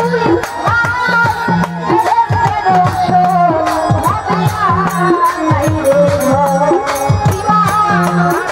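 Live Bangladeshi Baul folk song: a woman sings a wavering melody into a microphone over a steady hand-drum beat and quick, sharp percussion strokes.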